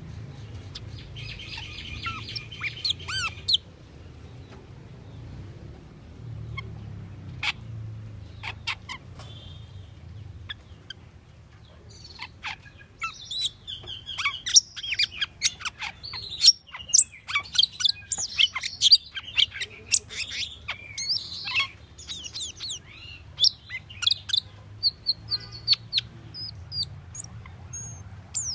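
Asian glossy starling calling: a few sharp, separate chirps at first, then from about halfway a dense run of quick whistled notes and squeaks that sweep up and down in pitch.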